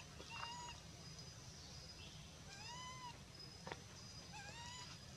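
Baby macaque giving thin, high coo calls, each arching up and down in pitch: a short one about half a second in, a longer one near three seconds, and a quick run of short rising calls near the end. A faint steady high tone runs underneath.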